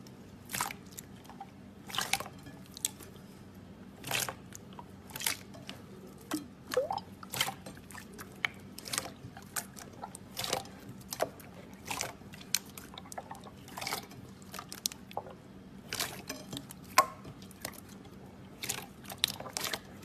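Slime being squished and played with, making an irregular series of short wet pops and clicks.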